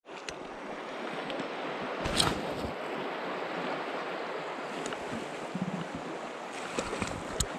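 Shallow river water running over rocks, a steady rushing, with wind buffeting the microphone briefly about two seconds in and again near the end.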